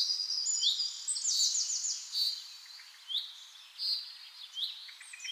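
Small birds chirping and calling: short sweeping chirps, a quick run of notes about a second in, then fainter, more spaced-out calls over a light background hiss.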